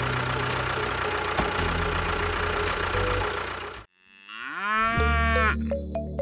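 A dense, steady sound with a low hum cuts off abruptly a little before four seconds in. After a short gap comes one long lowing animal call that rises in pitch and then holds, of the kind made by cattle.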